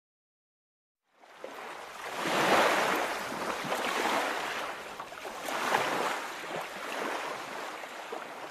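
Ocean surf sound effect: waves washing in, starting about a second in and rising and falling in several swells.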